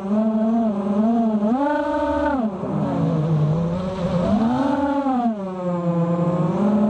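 Racing quadcopter's Cobra 2206 2100kv brushless motors and 5x4.5 props whining, the pitch rising and falling with the throttle. It rises sharply about one and a half seconds in, drops away a second later, and swells again around five seconds in.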